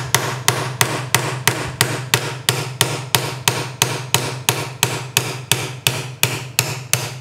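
Steady hammer taps on a roll pin punch, about four strikes a second, driving a tight rear roll pin out of a polymer pistol frame.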